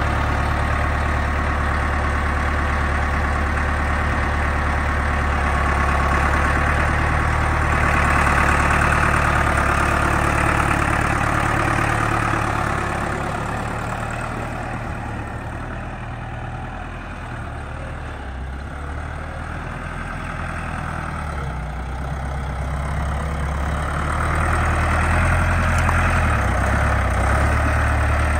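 1994 Case IH tractor's diesel engine idling steadily. It grows quieter for several seconds past the middle, then louder again near the end.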